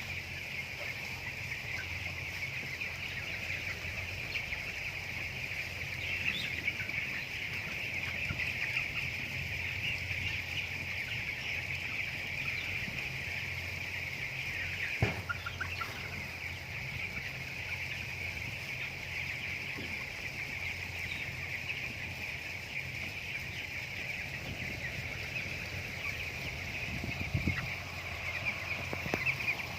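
A flock of broiler chickens calling together in a steady, dense chorus of peeps and clucks, over a low steady hum. A single sharp knock comes about halfway through.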